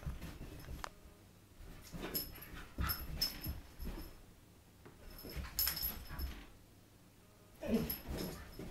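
White husky romping and rolling on a carpeted floor: bursts of scuffling with a light jingle, likely its collar tags, and a short whining vocal sound near the end.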